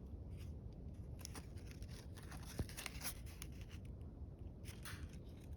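Faint rustling of a football jersey's fabric as it is handled and turned, with scattered light ticks and one sharper click about two and a half seconds in.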